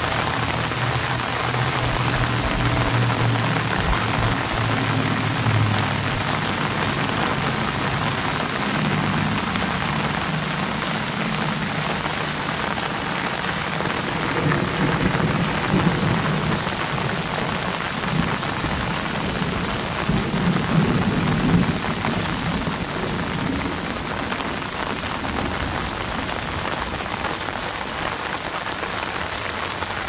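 Steady rain falling on apple tree leaves, a dense even patter, with low thunder rumbling through it three times: in the first few seconds, about halfway, and about two-thirds of the way through.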